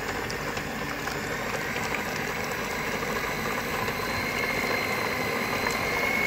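Electric stand mixer running steadily, its twin beaters churning a thick creamy mixture in the bowl. A thin high whine from the motor comes through more clearly in the last couple of seconds.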